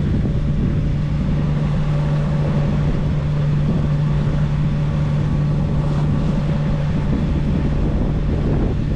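Sailboat's inboard engine running steadily under way as the boat motor sails, a constant low hum under wind and water noise.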